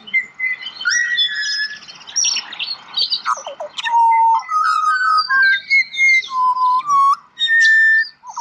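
Several butcherbirds singing together: rough chattering and squawky notes mixed with clear, flute-like whistles. In the second half the song turns to long held whistled notes stepping up and down in pitch.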